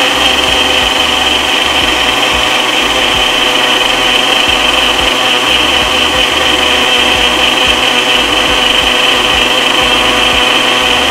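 Ninja single-serve personal blender running steadily with a high motor whine, its cup pressed down on the base as it blends protein powder with water into a shake.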